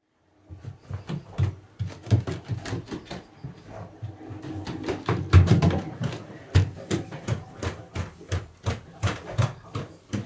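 A quick run of thudding footsteps on a wooden floor, about two to three a second, loudest around the middle.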